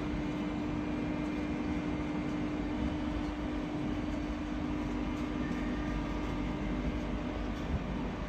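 Al Boraq double-deck TGV high-speed train pulling slowly out of a station: a steady electric hum over a low rumble, the hum easing off after about five seconds.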